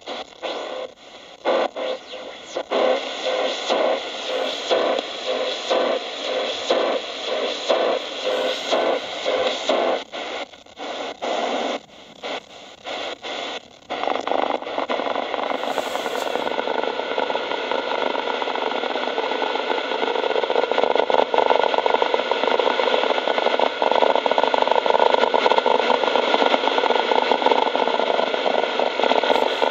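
Shortwave radio speaker hissing with static as the tuning knob is turned across the shortwave band. For the first half the static cuts in and out in quick choppy pulses, then about halfway through it settles into a steady hiss.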